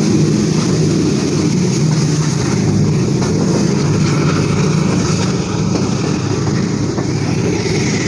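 ZCU20 (GE U20C) diesel-electric locomotive's engine running steadily and loudly as it hauls the train away at low speed.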